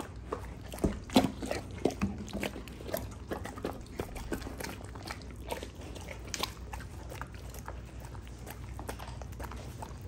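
Belgian Malinois dogs eating soft deviled eggs off a plastic folding table: wet chewing, lip-smacking and licking, with irregular clicks and taps, loudest about a second in.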